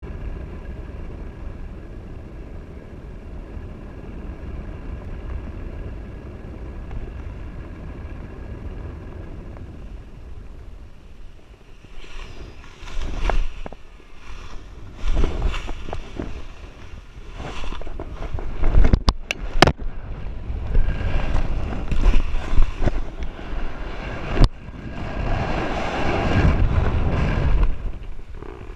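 Wind rushing over the microphone of a paraglider pilot's harness camera during a full stall. The rush is steady for the first dozen seconds, then comes in irregular loud surges as the canopy collapses and flaps, with a few sharp cracks just before the halfway point of the second half and one more later. A long, loud rush of air follows near the end as the pilot falls with the reserve parachute out.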